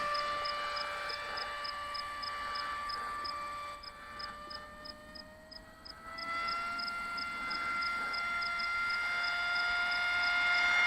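Electric motor and propeller of an RC FPV plane whining steadily. It drops back about four seconds in, then comes up again a little higher in pitch and louder after about six seconds as the throttle opens. A faint high tick repeats about three times a second.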